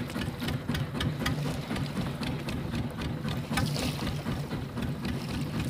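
Fishing boat's engine running steadily, with many short, sharp clicks and knocks at irregular intervals over it.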